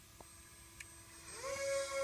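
Electric motor whine of a three-engine Bixler model airplane, rising in pitch as it spins up about 1.3 s in and then holding steady, over a faint steady hum.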